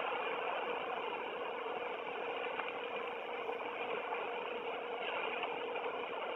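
A steady, unbroken droning hum with a constant mid-pitched tone running through it, like an engine idling.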